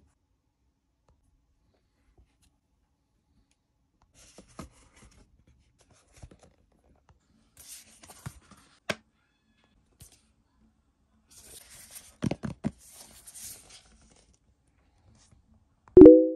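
Rustles and light clicks of an iPad being handled in a black plastic folio smart case, with a couple of sharper clicks about twelve seconds in. A short, loud pitched tone cuts in near the end.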